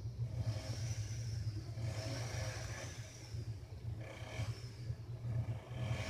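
Geared lift traction machine running: a steady low motor hum, with a high thin squeal that comes and goes every second or two.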